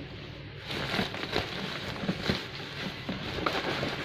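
Plastic packaging rustling and crackling as it is handled, with many small irregular clicks.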